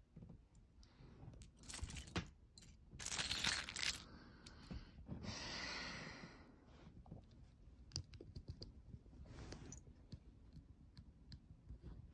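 Small plastic Lego pieces clicking and clattering as they are handled, with fabric rustling; the longest rustle comes about five to six seconds in.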